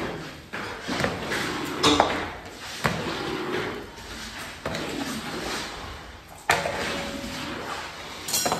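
Metal clanks and knocks at irregular intervals, about seven in all, over a steady background din. A few ring briefly; the loudest comes about six and a half seconds in and leaves a short ringing tone. The sound is typical of metal utensils striking a cooking pan.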